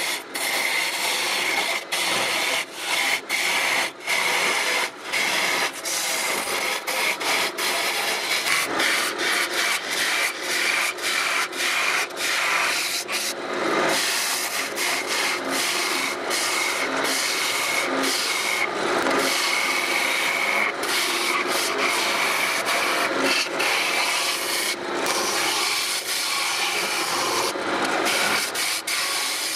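A hand-held turning tool cutting a spinning wood blank on a lathe: a continuous scraping hiss of shavings being peeled off, broken by frequent brief gaps where the tool comes off the wood.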